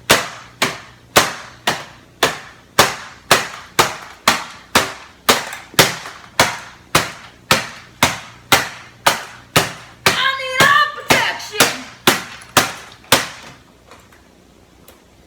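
Hammer striking a printer's plastic casing over and over, about two blows a second, stopping a little before the end. A brief wavering, voice-like cry cuts in about ten seconds in.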